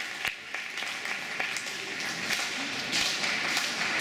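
Scattered audience applause in an ice rink, a few single close-by claps standing out at first and the clapping growing denser and a little louder after about two seconds.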